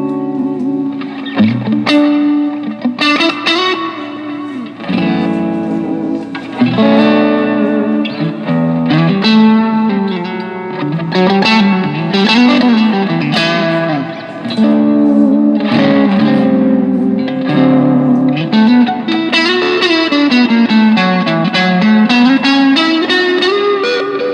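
Squier Vintage Modified Stratocaster electric guitar played through a Zoom G3X multi-effects processor: lead lines of held notes and quick runs rising and falling in pitch.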